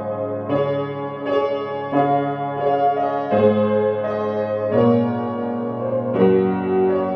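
Background piano music: sustained chords, with a new chord struck about every second.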